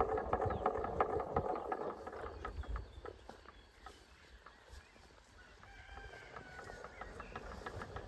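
Plastic-bottle windmill scarecrow spinning on its wire axle, rattling with quick clicks, dying away after about two seconds. A faint, distant bird call follows about six seconds in.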